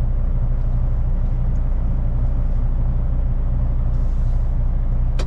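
Cummins X15 diesel of a Kenworth T880 heavy-haul truck running with a steady low drone, heard from inside the cab. A single sharp click sounds near the end.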